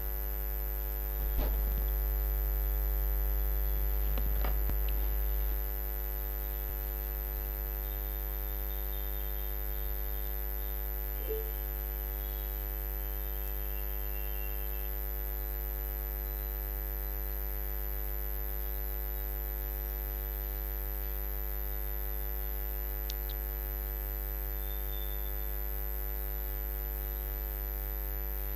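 Steady electrical mains hum with a ladder of overtones and a thin high whine, picked up by the recording setup. A few soft knocks and a slightly louder low rumble come in the first six seconds.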